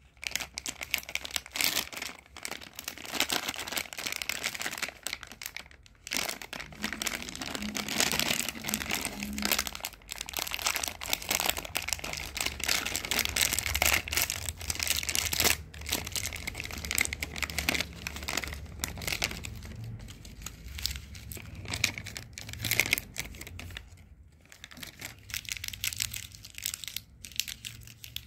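Plastic candy packet of fruity chews crinkling and crackling as it is handled and torn open, the wrapped chews rustling in the hand, with brief lulls about six seconds in and again near the end.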